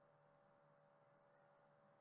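Near silence: faint steady background hum.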